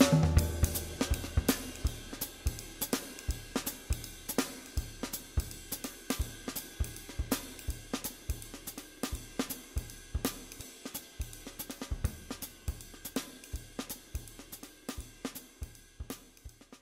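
Background music with a steady drum-kit beat, cymbals and hi-hat, fading out gradually to near silence by the end.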